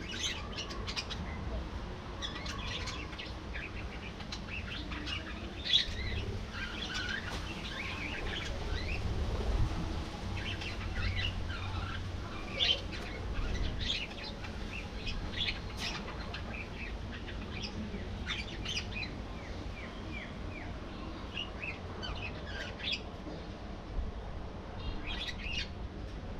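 A flock of budgerigars chirping and chattering, many short, overlapping chirps and squeaks scattered throughout, over a low steady rumble.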